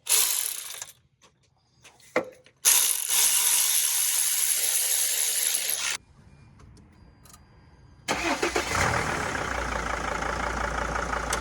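T1N Sprinter's five-cylinder diesel engine being started: a few seconds of loud noise, a pause, then about eight seconds in it is running and settles into a steady, even idle on its newly fitted harmonic balancer.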